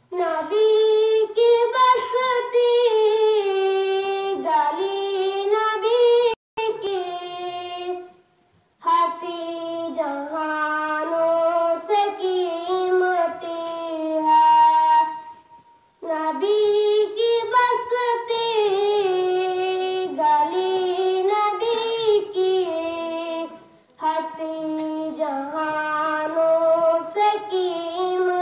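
A child's solo voice reciting a naat, an Islamic devotional poem, sung unaccompanied in long melodic phrases with short breaks for breath between them.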